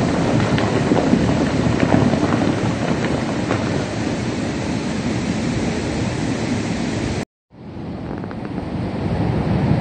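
Wind buffeting the microphone with a steady rushing noise beside a river broken up by an ice-clearing blast, with a few faint ticks in the first few seconds. The sound breaks off for a moment about seven seconds in, then the rushing resumes.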